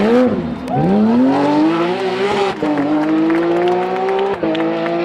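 Porsche 911 rally car's flat-six engine accelerating hard away, its revs climbing through the gears with two upshifts, one about halfway through and one near the end.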